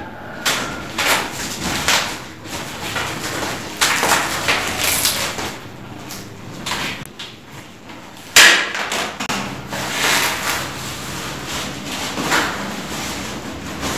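Crinkling and tearing of a parcel's plastic wrapping and packing tape as it is pulled open by hand, in irregular rustling bursts, with a sharp rip about eight seconds in.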